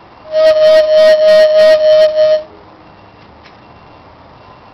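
A dog whining: one high, steady whine lasting about two seconds that stops about halfway through.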